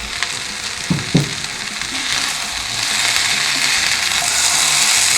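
Potatoes and mushrooms sizzling in a frying pan. There are two short knocks about a second in, and the sizzle grows louder from about three seconds in.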